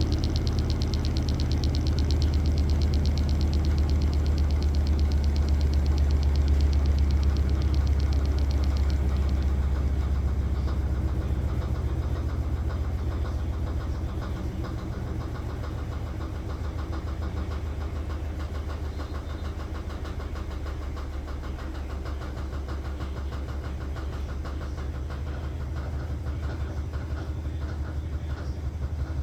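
Maytag Bravos MCT top-load washer spinning its drum, a low motor hum with a fast pulsing rattle. About halfway through it gets quieter and eases to a lower, steady run, as the drum slows near the end of the cycle.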